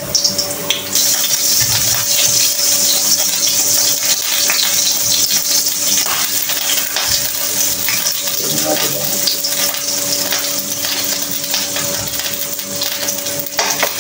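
Food sizzling as it fries in a wok, a steady hiss, with scattered clinks and knocks of utensils and dishes. A faint steady hum runs underneath.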